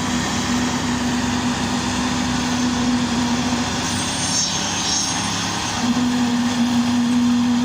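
Heavy construction machinery running steadily, with a constant engine noise. A steady hum drops out for about two seconds in the middle while a brief high whine sounds, then the hum returns.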